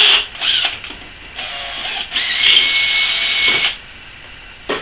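Handheld electric drill boring through a thin 304 stainless steel repair bracket and the Harley batwing fairing support beneath it, in bursts: a short one at the start, a weaker run about a second and a half in, then a louder run of about a second and a half with a steady high squeal. A short knock near the end.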